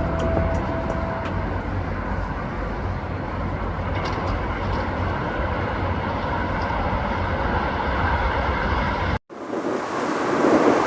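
Steady low outdoor rumble, then after a brief drop-out about nine seconds in, the louder rushing noise of a JR West 681-series limited-express electric train approaching on the line, building in level.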